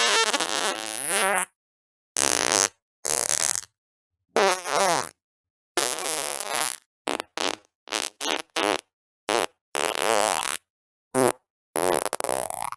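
A quick series of about a dozen separate fart sounds, some long and wavering in pitch, others short pops, each cut off into dead silence before the next. The shorter ones come in a fast cluster about halfway through.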